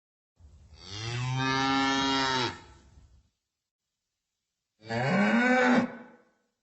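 A cow mooing twice: a long, low, steady moo of about two seconds, then after a pause a shorter moo that rises and falls in pitch.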